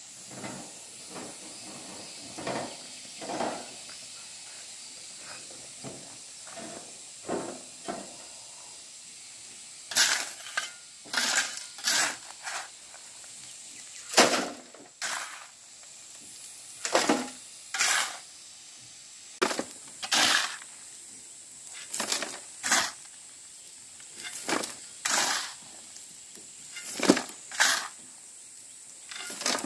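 Masonry tool work: short, sharp scraping strokes, roughly one a second from about ten seconds in, with softer low knocks and rustles before that. A steady high-pitched tone runs underneath.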